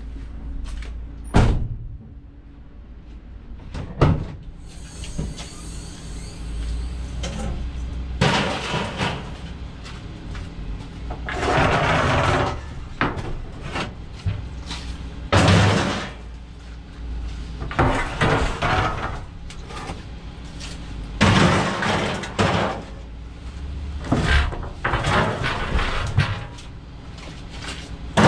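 Scrap metal being handled: irregular loud bangs, clatters and longer scrapes of steel pieces being thrown down and dragged.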